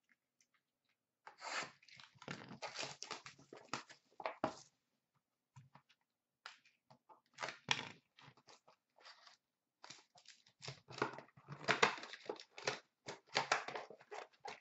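Hockey card box and its packs being torn open by hand: crinkling, tearing wrapper and cardboard in two busy spells, with a few light rustles between them.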